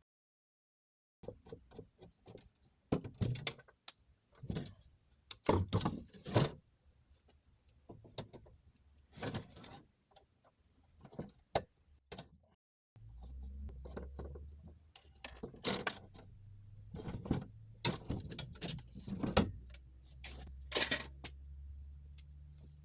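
A run of sharp knocks and clinks of things being handled and set down, joined about halfway by a low steady hum.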